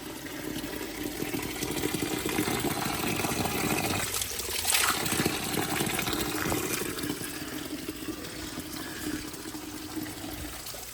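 Water running steadily from a natural spring outlet, with a brief louder splash about halfway through.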